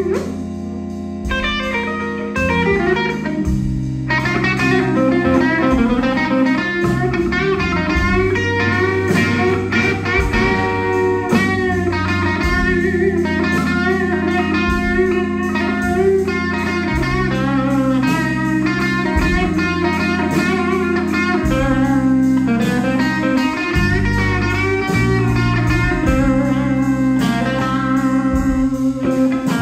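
Blues band playing live: electric guitar out front over bass guitar, drums and keyboard, at a steady beat.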